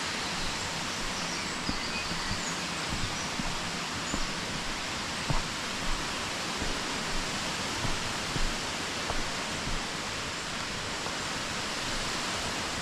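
Steady rush of a waterfall where the river goes over the drop, an even roar of white water, with a few faint soft knocks scattered through it.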